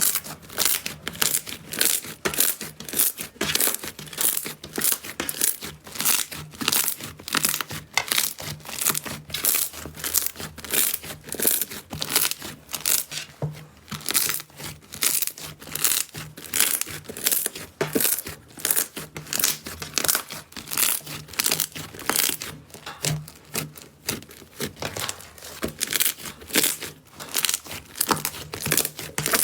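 Slime being squeezed and kneaded by hand, giving a steady run of sharp crackles and pops, several a second.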